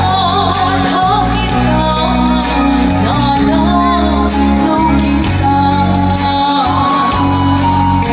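A woman singing a slow melody live through a microphone and PA, over an instrumental backing with steady sustained bass notes.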